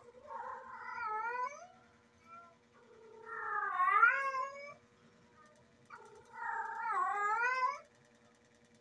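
Female domestic cat in heat calling: three long, wavering yowls about a second apart, the middle one loudest.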